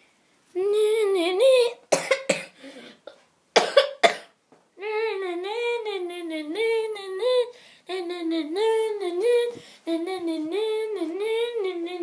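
A child hums a short phrase, then coughs a couple of times. After that the child hums a longer, wavering tune in short up-and-down phrases.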